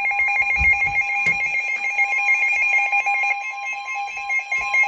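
Emergency alert attention tones ahead of a tornado warning bulletin: a steady two-tone alarm with a rapid warbling, ring-like beep over it, cutting off near the end.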